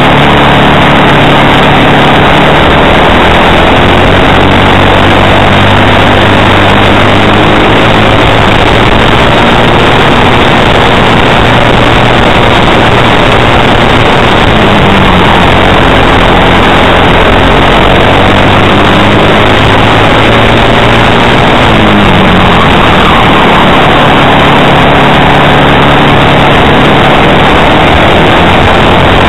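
Onboard sound of a racing kart's engine at race speed, loud and distorted. The engine note drops off for corners and climbs again under acceleration, a few times.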